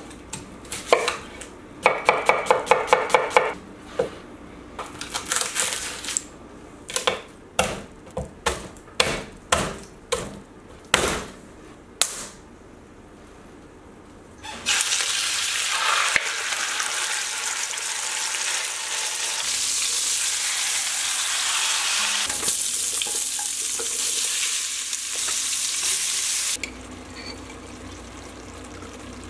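Chef's knife cutting a red onion on a wooden cutting board: a fast run of chops about two seconds in, then single cuts every half-second or so. About halfway through, food starts sizzling loudly and steadily in a hot pot for about twelve seconds, then it cuts off abruptly.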